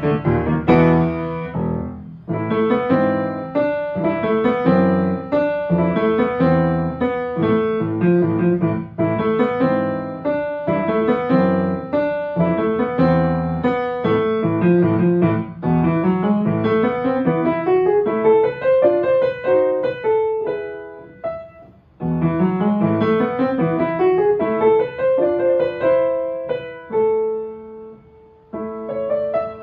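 Yamaha upright piano played solo, a quick run of many notes. About two-thirds through the playing dies away, then comes back loudly, and near the end it turns to slower, softer held notes.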